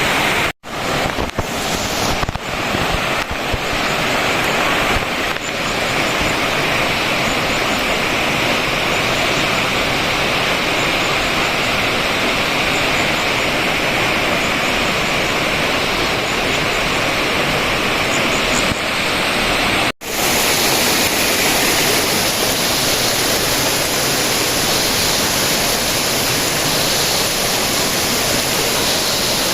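Steady loud rush of water from Mahua Waterfall. The sound cuts out abruptly for an instant about half a second in and again about twenty seconds in.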